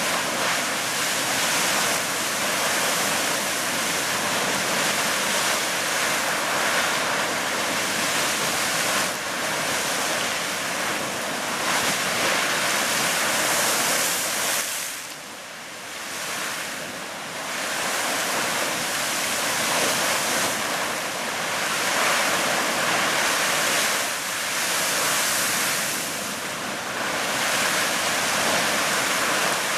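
Fountain Geyser erupting: a continuous rush of splashing water and venting steam that swells and eases in surges, dropping briefly about halfway through.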